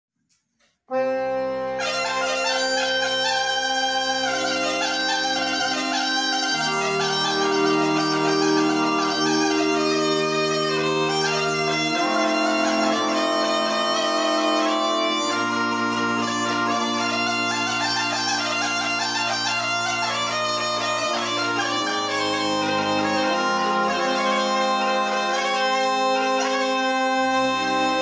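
Instrumental introduction of a Bulgarian folk song: a wind-instrument melody over sustained drone-like notes and a bass line that shifts every few seconds, starting about a second in, with no singing yet.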